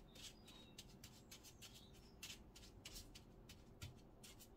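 Faint, quick scratchy clicks of a wooden tart tamper pressing a biscuit-crumb mix into a paper cupcake case.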